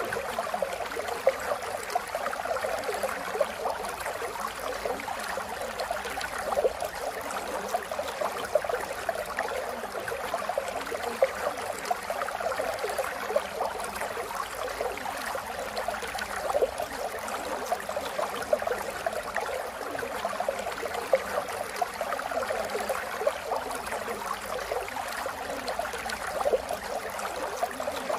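Steady rain falling: a dense wash of drops with frequent brief louder drips scattered through.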